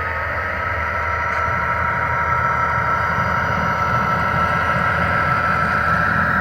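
HO scale model locomotive running on the layout: a steady motor whine over a low rumble, growing a little louder over the first couple of seconds and then holding.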